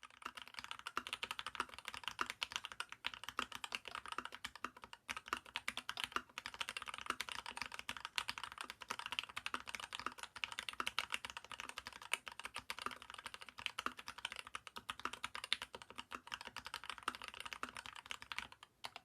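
Steady, fast typing on a Leopold FC660M mechanical keyboard with lubed MX Tealios linear switches in a steel plate, a dense run of keystrokes that stops shortly before the end.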